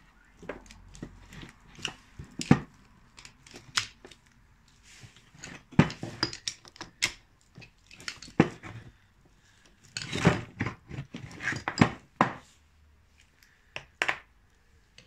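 Irregular metal clinks and knocks from a greasy inner CV joint being worked apart by hand with a screwdriver, its ball bearings and housing knocking against each other and the tool.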